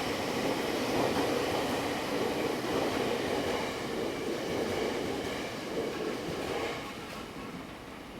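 Electric passenger train running along the track with steady wheel and running noise that dies down about seven seconds in.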